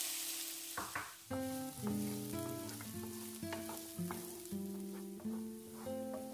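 Diced red onion sizzling in hot olive oil in a frying pan and being stirred with a wooden spatula; the sizzle is strongest at the start and thins after about a second. Plucked guitar-like background music comes in about a second and a half in.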